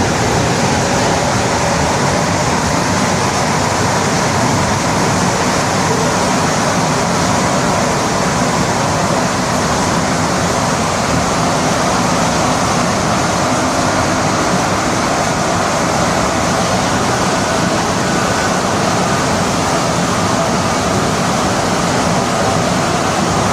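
Montreal Metro MR-63 rubber-tyred train running at speed in the tunnel: a loud, steady rumble and hiss with faint steady tones in it.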